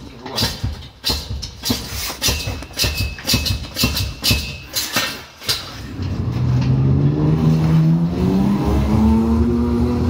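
Hand pallet jack's hydraulic pump being worked, lifting a loaded pallet: a run of clicks and creaks with a thin squeak from the pump handle strokes for about five seconds. Then, from about six seconds, a loud drawn-out tone with several overtones slowly rises in pitch.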